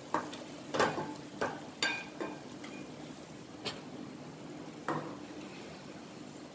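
Wooden spatula stirring chicken in a pot, knocking and scraping against the pot's side and rim about seven times at an irregular pace, over a faint steady sizzle from the cooking masala.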